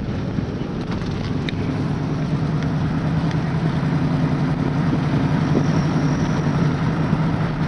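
A vehicle's engine running steadily under road noise while driving, growing slightly louder through the stretch.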